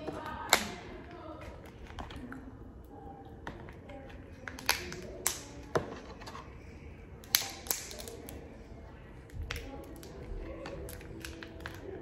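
King crab leg shell cracking and snapping as it is broken apart by hand: sharp cracks, the loudest about half a second in, then three close together around five seconds and two more a little later.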